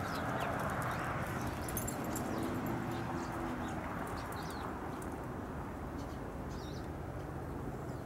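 A steady low rush of outdoor background noise, a little louder in the first few seconds, with a few faint, short bird chirps scattered through.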